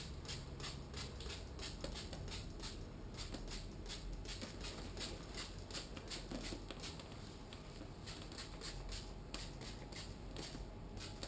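Hand spray bottle pumping out ACF50 anti-corrosion fluid as a fine mist onto a motorcycle engine, in quick repeated short hissing squirts, about two or three a second.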